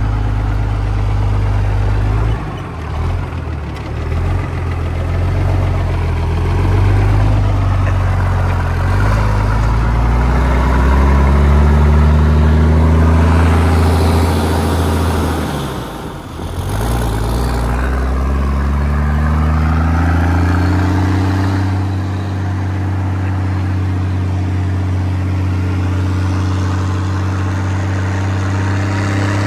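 Rat truck's diesel engine, running on burnt motor oil, pulling away and accelerating through the gears: its note climbs, drops sharply at a gear change about halfway through, climbs again, then holds a steady cruising drone for the last third.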